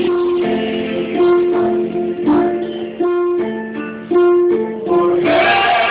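Worship-song accompaniment on a plucked stringed instrument, picking a run of single notes between sung lines. A voice comes back in near the end, singing "Lord".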